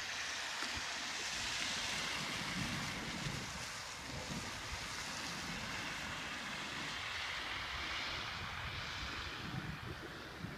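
Hail falling onto an asphalt road, making a steady, even hiss, with wind rumbling on the microphone.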